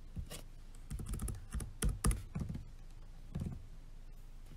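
Typing on a laptop keyboard: several short runs of key clicks, the loudest about two seconds in, stopping after about three and a half seconds.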